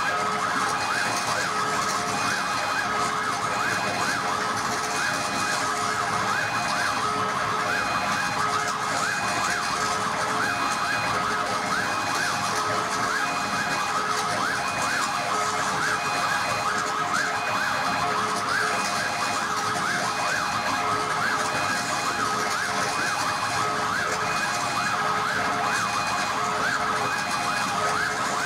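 Live laptop electronic music played over loudspeakers: a dense, unbroken texture of wavering, siren-like pitch glides over short tones that repeat at an even pace.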